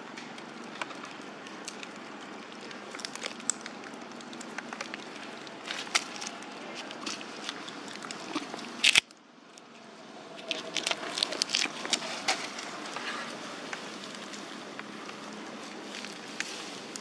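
Macaques moving and handling things in dry leaf litter, giving scattered crackles and rustles. A sharp crack comes about halfway through, after which the background briefly drops away and then returns.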